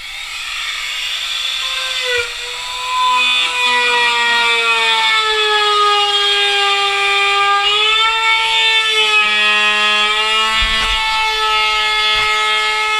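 Trim router with a flush-trim bit running at a steady high whine, cutting through the laminated, painted surfboard deck to open the hole over a Tuttle box. It spins up at the start, and its pitch sags briefly a couple of times as the bit takes load.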